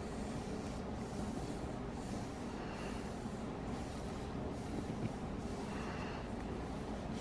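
Quiet, steady background noise with no distinct sounds: room tone.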